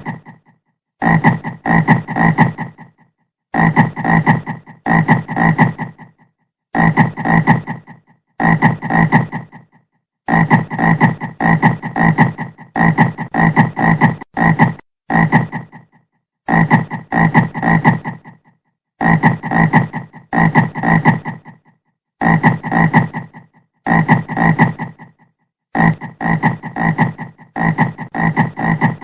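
Frog croaking over and over in short clusters of a few quick croaks each, one cluster every second or two with brief silent gaps between.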